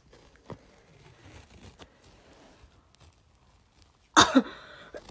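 Athletic tape being slowly peeled off the skin of a leg, with faint crackling and a few small ticks. About four seconds in, a short, loud vocal exclamation breaks in.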